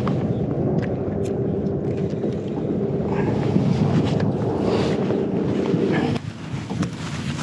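A boat's motor running with a steady low hum, with wind on the microphone, cutting off suddenly about six seconds in; a few light knocks follow.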